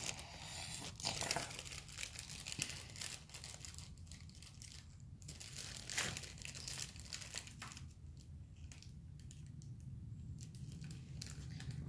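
Thin gold foil flakes crinkling and tearing as they are handled, in irregular crackles.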